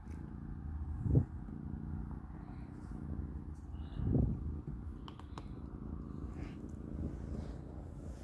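Kitten purring steadily, a continuous low rumble that swells louder twice, about a second in and about four seconds in.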